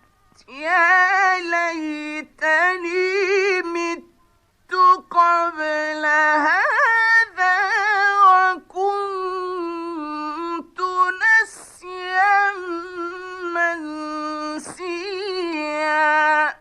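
A man reciting the Quran in the slow, melodic mujawwad style: long, ornamented notes held in a high register, in several phrases with short breaths between them.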